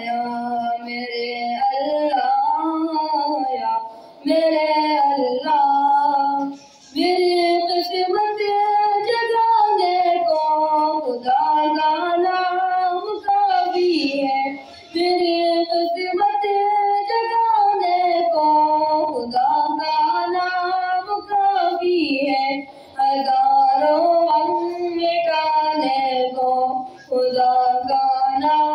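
A boy singing a devotional Urdu song solo and unaccompanied, in long held phrases with short breaths between lines.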